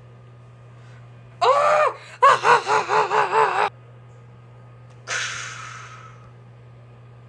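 A high-pitched voice cries out: one short rising-and-falling cry, then a quickly pulsing, wavering wail for about a second and a half. About five seconds in comes a breathy hiss that fades away.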